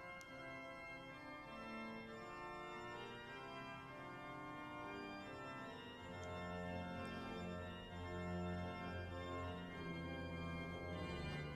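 Soft background organ music playing sustained chords, with deeper bass notes joining about six seconds in.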